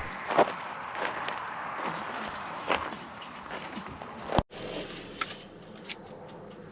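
A cricket chirping steadily over a faint hiss, about two and a half short, high chirps a second. About four and a half seconds in there is an abrupt cut, and after it the chirping carries on much fainter.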